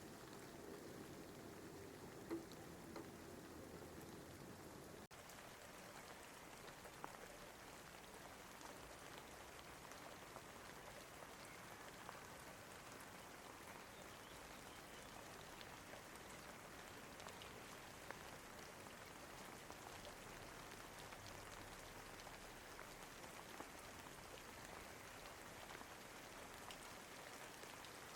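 Faint, steady rain with scattered drop ticks, from an added rain-sound track, with a brief drop-out about five seconds in.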